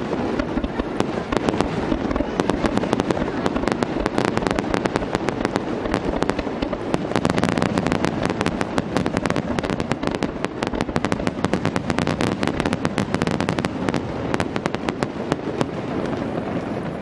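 A rapid-fire fireworks barrage: shells launched and bursting in quick succession, giving a dense stream of sharp bangs and crackles over a continuous low rumble. The bangs thin out somewhat near the end.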